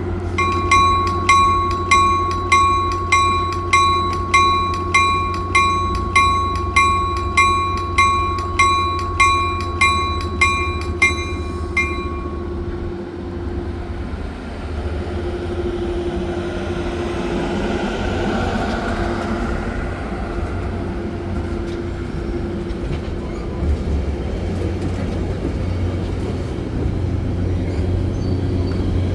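Caltrain push-pull commuter train arriving: its bell rings steadily, about one and a half strikes a second, for the first twelve seconds, then stops. The train keeps rolling with a steady low rumble and hum of the cars, and a rise of noise partway through.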